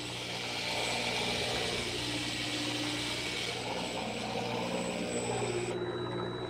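A fishing boat's engine running steadily at idle, a constant low hum. A high hiss over it cuts off suddenly near the end.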